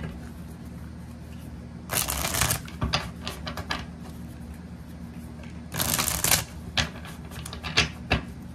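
A deck of tarot cards being shuffled by hand: two quick rattling bursts of cards, about two seconds in and again about six seconds in, with scattered light clicks and taps of the cards between them.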